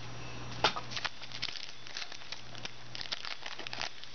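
Foil trading-card pack wrapper crinkling and crackling as it is handled and torn open by hand, a run of small irregular crackles with a sharper rustle about half a second in.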